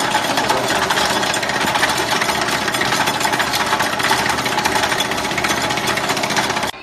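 Belt-driven tyre-rubber cutting machine running, its blades chopping rubber strips into chips with a loud, rapid clatter that cuts off suddenly near the end.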